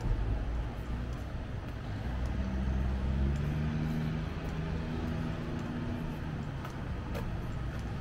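A motor vehicle's engine hum on a wet city street, strongest from about two seconds in to six, over a steady hiss of rain and traffic with deep rumble.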